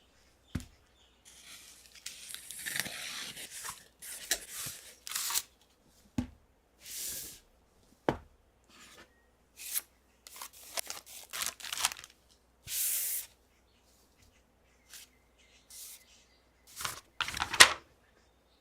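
Packaging being opened by hand: a run of short tearing and rustling sounds from plastic and cardboard, with a few sharp knocks between them and the loudest tear near the end.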